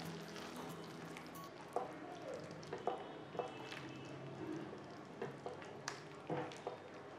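A flat spatula stirring chicken pieces through thick tomato gravy in a granite-coated pan, with irregular scrapes and knocks of the spatula against the pan.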